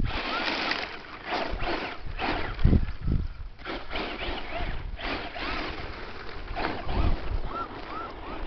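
Stock Traxxas Slash 2WD electric radio-controlled truck driving over loose gravel, its tyres spinning and spraying gravel in repeated bursts as it accelerates, with a few heavier thumps about two and a half to three seconds in.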